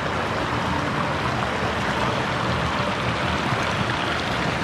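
Water pouring steadily down the stepped stone weirs of a fish ladder, a continuous splashing flow.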